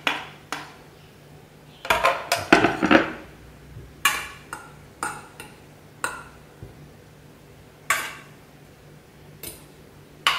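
Metal fork clinking and scraping against a small stainless steel saucepan while onions are mixed into and fluffed through couscous. The clinks are sharp and irregular, with a quick flurry about two seconds in.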